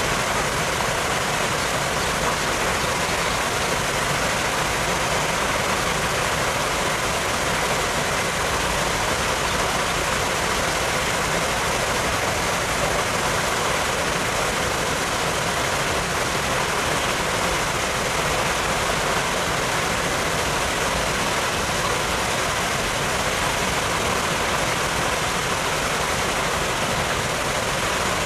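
Steady rushing noise, even and unbroken, with no distinct calls, knocks or other events.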